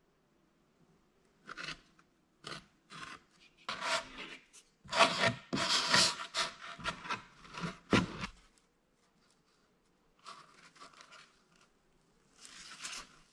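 Flat wooden stick scraping and rubbing across a rigid foam insulation board as it spreads glue, in a run of short strokes that are loudest in the middle. Near the end a foam board is pressed down on top.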